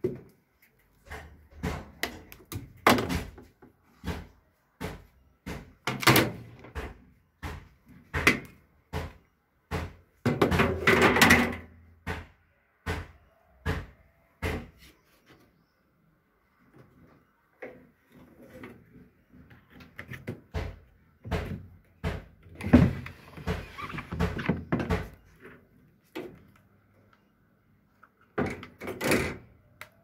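Irregular plastic clicks, knocks and scrapes from handling a Whirlpool condenser tumble dryer's parts: the lint filter being taken out, the lower condenser hatch unlatched, and the condenser unit slid out of its compartment.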